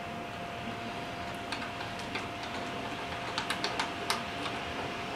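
Small scattered clicks and taps of a wire being fitted to a model-train transformer's terminal post by hand, coming more often in the second half, over a faint steady tone.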